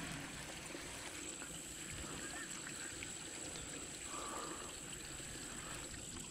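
Faint, steady trickle of water running through a small drainage channel. A thin, high steady tone sits over it, and a short chirp comes about four seconds in.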